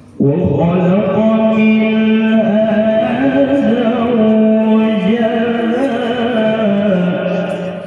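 A man reciting the Qur'an in the melodic tilawah style into a handheld microphone: one long phrase that comes in sharply just after the start, held mostly on one pitch with small ornamented turns, stepping lower and fading near the end.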